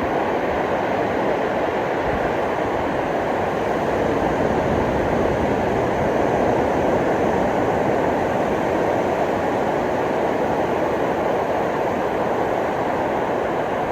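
Ocean surf washing onto a beach: a steady rush of waves that swells slightly midway.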